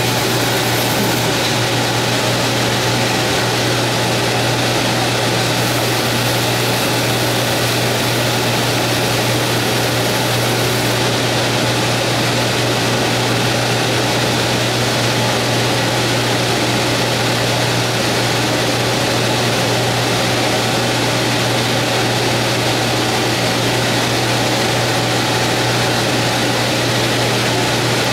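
Sansei 150 W laser cutting and engraving machine running as it cuts EVA foam: a steady machine whir with a low hum, without pauses.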